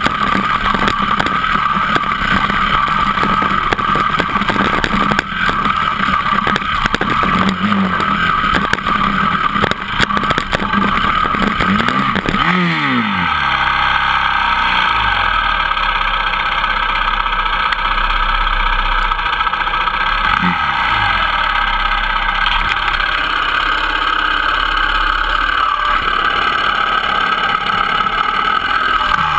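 Dirt bike engine running on a rocky trail, with constant knocks and rattles from the rocks under the wheels. About twelve seconds in the engine pitch drops sharply as the bike goes down on its side, and after that a steadier drone continues with little knocking, with two brief pitch glides later on.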